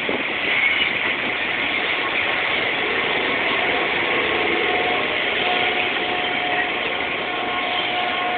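Tobu Kameido Line electric commuter train alongside the platform: a steady hum and hiss, with faint high whining tones joining about three seconds in.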